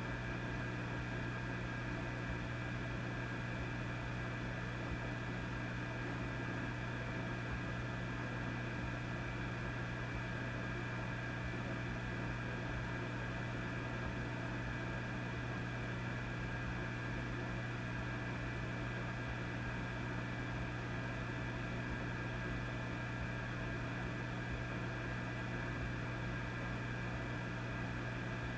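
Vintage tube amplifier idling with a steady low mains hum, several fainter steady tones above it, and a constant hiss.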